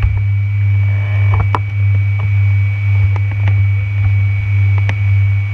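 A loud, steady low hum with a faint high whine above it and a few scattered clicks and knocks.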